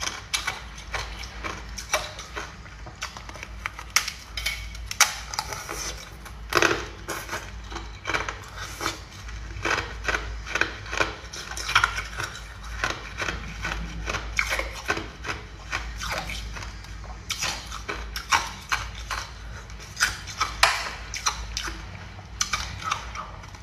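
Thin, brittle ice crunching and crackling: a dense, irregular string of sharp snaps, with a few louder cracks scattered through.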